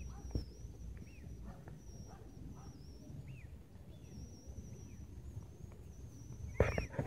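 Quiet outdoor ambience: a faint steady high whine with a few faint, short, bird-like chirps over a low rumble. Near the end comes a loud burst of rapid rustling and scraping close to the microphone, typical of handling noise.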